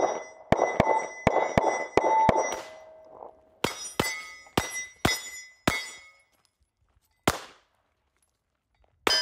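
Archon Type B 9mm pistol firing at steel targets, each shot followed by the ringing clang of a hit plate. Two fast strings of about seven shots each, about three a second, then a single shot, and near the end a loud shot whose plate rings on.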